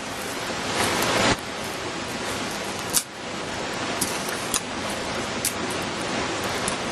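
Kindling doused with denatured alcohol catching and burning: a steady rushing hiss of flame that swells briefly about a second in, with a few sharp crackles and pops.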